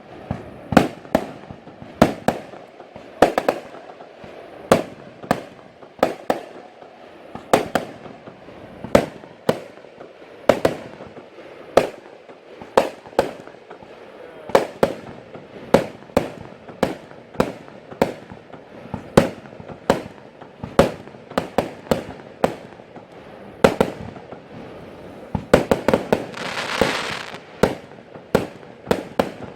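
Category F2 consumer fireworks going off in a steady run of sharp shots, about one to two a second. Near the end there is a hissing, crackling burst lasting about a second and a half.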